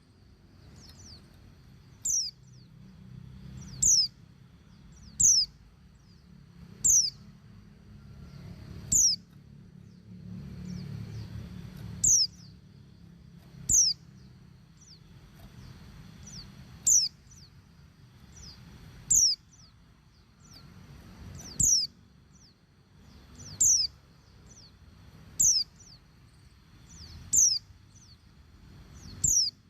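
Female white-eye giving short, high calls that drop steeply in pitch, repeated about every two seconds, about fourteen times. This is a hen in breeding condition calling to males.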